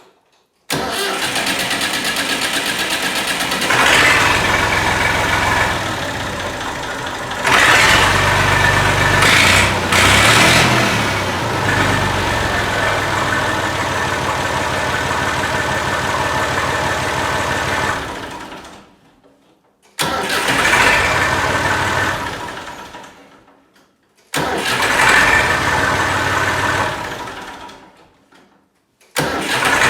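Massey Ferguson 135 tractor engine started on a new starter motor. It catches almost at once and runs for about seventeen seconds, with a few brief revs, then runs down and stops. It is then started three more times in quick succession, each time running a few seconds before dying away.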